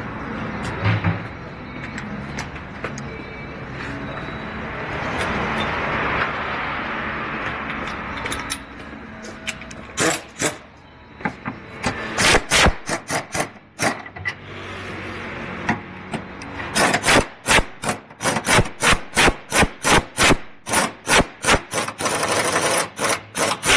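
A hand tool rasping on metal, likely part of working the old trailing-arm bushing sleeve. A steady rubbing noise in the first half is followed by a fast, regular run of strokes, about three a second, near the end.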